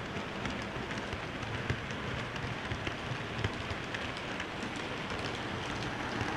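Model train rolling along its track, heard from a wagon it is pulling: a steady rattling hiss scattered with small irregular clicks from the wheels on the rails.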